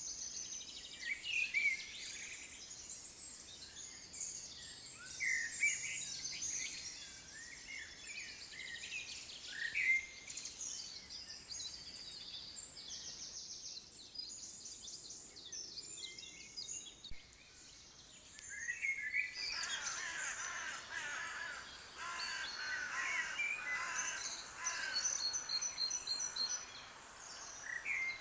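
Several birds chirping and calling at once, many short high chirps and trills over a faint background hiss. The bird calls thin out for a few seconds past the middle, then a fuller chorus starts abruptly about twenty seconds in.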